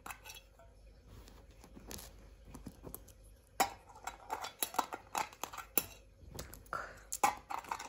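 Coins dropping into a piggy bank one after another: a run of sharp clicks and clinks that starts about halfway in. Before that there is only faint handling.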